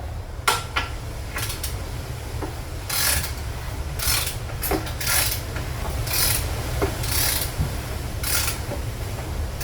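A ratchet wrench clicking in short strokes about once a second as the rebuilt engine's crankshaft is turned over by hand, checking that it rotates freely on the newly fitted connecting-rod bearings. A steady low hum runs underneath.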